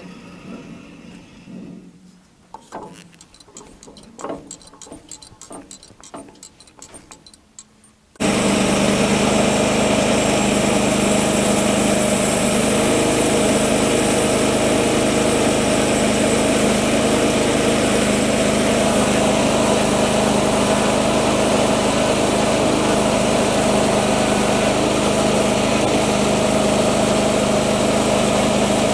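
Petrol engine of a Woodland Mills HM126 portable bandsaw sawmill running loud and steady. It comes in abruptly about eight seconds in, after a quiet stretch of light clicks and knocks.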